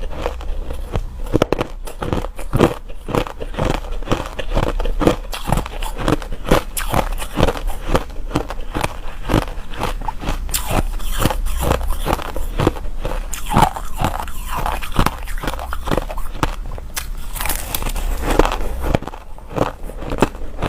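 A person biting and chewing hard ice close to the microphone: a steady run of sharp crunches, two or three a second.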